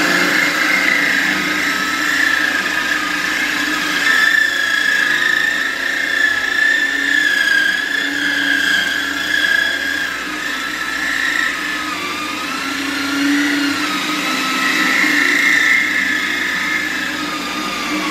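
Corded electric drill spinning a 1-1/4-inch Lenox diamond hole saw through the wall of an antique claw-foot tub: a steady grinding whine that wavers a little in pitch as the bit cuts well.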